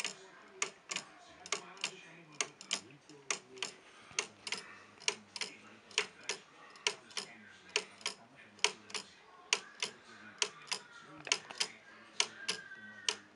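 Wooden pendulum clock ticking: the pallets of a wooden anchor escapement striking the teeth of a wooden escape wheel. The sharp ticks come about two a second, many in close pairs.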